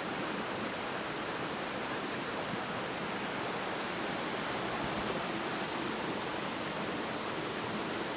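Small waterfall and creek water rushing steadily, an even, unbroken hiss.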